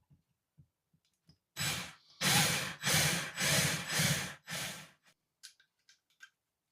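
A person blowing hard in six short puffs, one after another, followed by a few light clicks.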